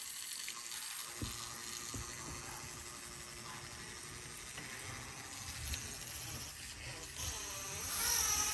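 Radio-controlled rock crawler's small electric motor and gear drivetrain whirring as it crawls over a wooden ladder bridge, with a couple of knocks from the tyres on the wooden rails in the first two seconds. The whirr grows louder and higher near the end.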